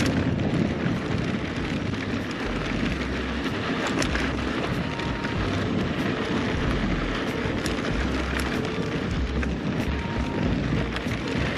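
Mountain bike riding down a dirt trail: wind rushing over a chest-mounted action camera and tyres rolling on the dirt, with scattered clicks and rattles from the bike.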